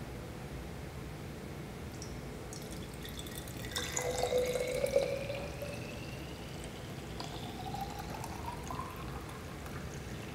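Green vegetable juice poured in a thin stream from a jug into a glass bottle, splashing loudest about four to five seconds in. The pitch rises as the bottle fills.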